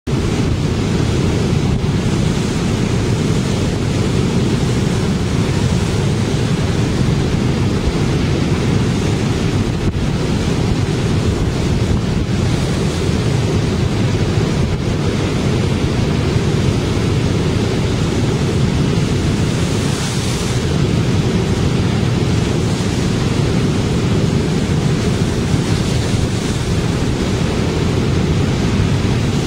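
Storm surf breaking and surging against a sloped concrete seawall, a continuous heavy wash of water. Strong wind buffets the microphone, adding a steady low rumble.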